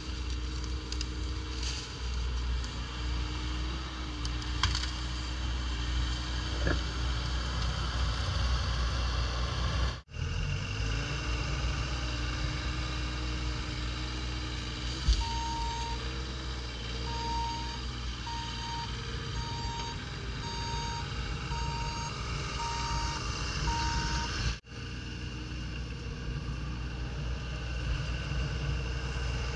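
Bobcat E35 mini excavator's diesel engine running steadily as it works, with a travel alarm beeping about once a second for several seconds in the middle. The sound breaks off abruptly twice.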